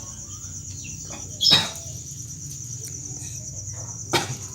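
Crickets chirping steadily in a fast, even pulse, with two short sharp noises, one about a second and a half in and one near the end.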